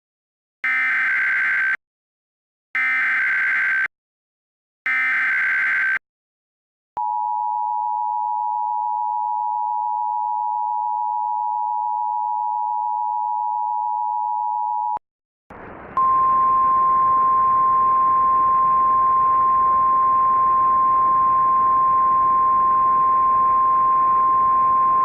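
Emergency Alert System tones. First come three SAME header data bursts of warbling digital tone, each about a second long. Then the two-note EAS attention signal (853 and 960 Hz together) holds steady for about eight seconds. After it, radio static comes in, and a single 1050 Hz NOAA Weather Radio warning alarm tone sounds over it and is still going at the end.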